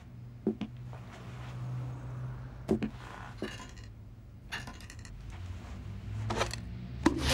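A low steady hum with a handful of scattered small clicks, knocks and brief rustles.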